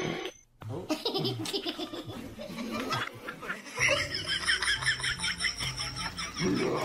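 A person laughing hard in quick, repeated bursts. The laugh changes to a different, higher-sounding one about four seconds in.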